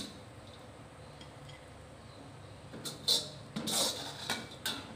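Metal ladle scraping and knocking against a wok as cooked tempeh is scooped out: quiet at first, then a few sharp scrapes and clinks in the second half.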